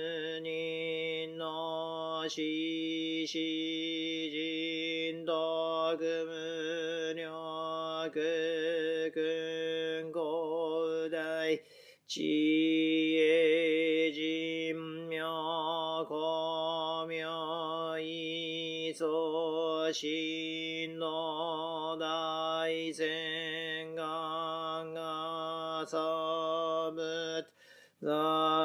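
A Buddhist priest chanting sutra for the Jōdo Shinshū morning service: one voice holding long, drawn-out tones. It breaks off briefly about twelve seconds in and again near the end.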